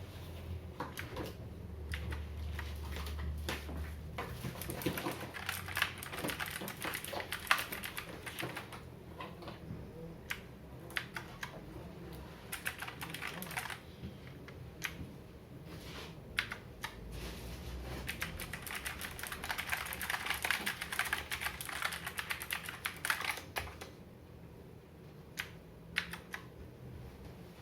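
Typing on an Aula G909 mechanical keyboard: a steady stream of key clicks, with two faster, denser flurries of keystrokes and sparser single presses in between.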